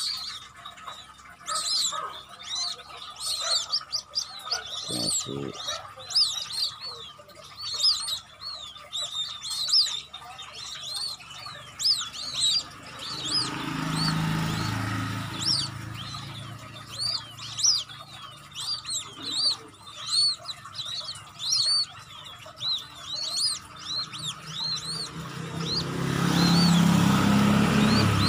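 Newly hatched white-breasted waterhen and quail chicks peeping, high and rapid, several peeps a second without a break. Road traffic passes twice, a low rumble building about halfway through and again, louder, near the end.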